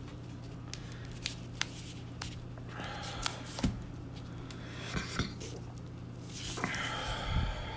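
Fingers pressing and squeezing a new screen into an iPhone 8 Plus's frame: scattered small clicks and taps, the sharpest about three seconds in, with short spells of rubbing and scraping near the middle and again near the end.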